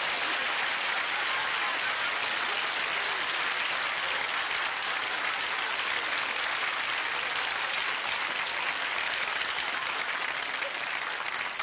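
Studio audience applauding steadily, dying away near the end.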